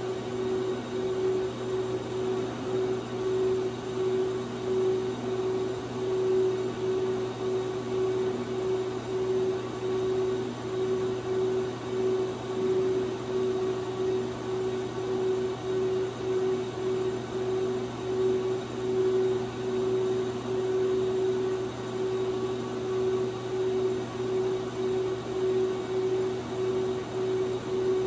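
Fanuc R-2000iB/210F industrial robot arm's servo motors and drives giving off a steady electric hum and whine as the arm moves, swelling and fading about once a second.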